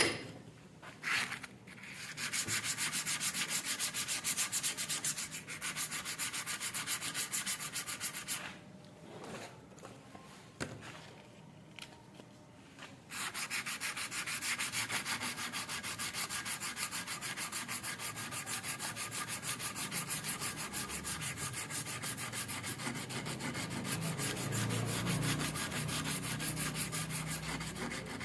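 Hand sanding of the rusted garden shears' metal: quick, even back-and-forth strokes of sandpaper rasping over the surface. There is a pause of a few seconds in the middle, after which the strokes resume.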